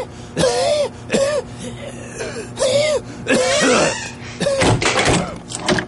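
A person coughing and wheezing, about eight short hoarse gasping coughs in quick succession, each rising and falling in pitch.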